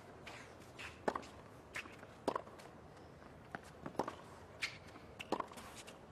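Tennis ball struck back and forth with racquets in a baseline rally: a sharp hit about every second and a quarter, with fainter ticks between the hits.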